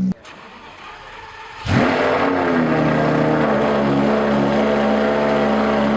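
A car engine starting: after a quieter second and a half it fires suddenly with a short rev flare, then settles into a steady, loud idle.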